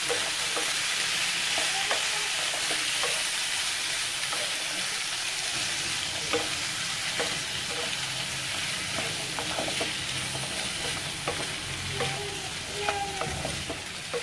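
Boiled chickpeas frying in oil in a steel kadai with a steady sizzle, while a wooden spatula stirs them, scraping and knocking against the pan now and then.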